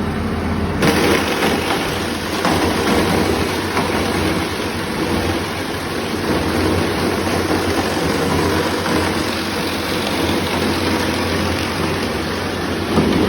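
Screw-type tomato paste extraction machine running: a steady low machine hum with a dense mechanical noise over it, which comes in louder about a second in and then holds steady.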